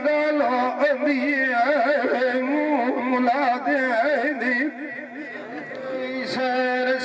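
A man singing a Saraiki dhola folk song: one voice on a long, heavily ornamented line that bends up and down in pitch, dropping quieter about five seconds in before rising again.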